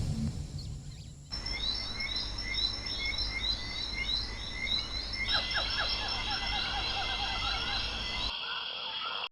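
Outdoor nature ambience: a steady background hiss and low rumble with rows of quick, high chirping animal calls. A second, lower set of chirps joins about halfway through, and the ambience cuts off abruptly near the end, after the tail of a drum-heavy music track.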